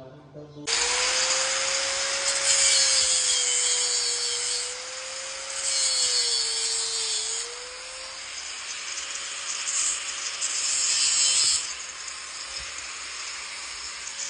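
Handheld electric power tool running with a steady whine, working into the steel of a steering column joint to take out the old pin. It bites harder three times, each spell louder and hissier, and the whine sags a little under load around the middle.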